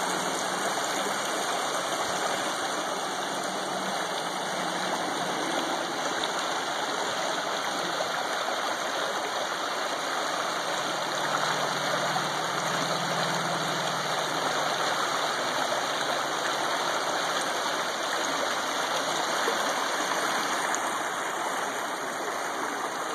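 Shallow creek water running steadily over stones and a small rocky cascade.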